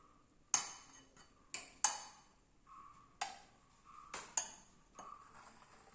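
Utensils clinking against dishes or a pot, about seven sharp, irregular knocks, each ringing briefly.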